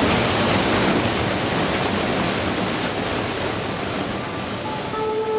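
Fast, strong-current river water rushing and churning through a narrow rocky gorge at a small waterfall, a steady even rush. Plucked-string music comes in near the end.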